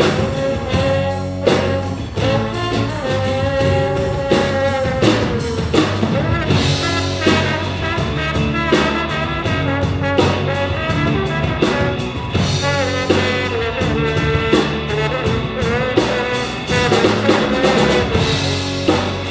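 A live band playing a song: a drum kit keeps a steady beat under a held, wavering lead melody.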